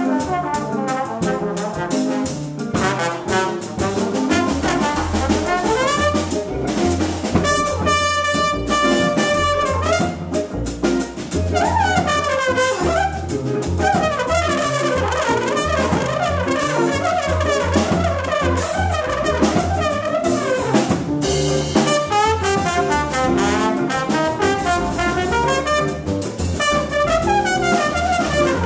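Trombone soloing in a live jazz band, backed by upright bass and drum kit. There is one long held note about eight seconds in.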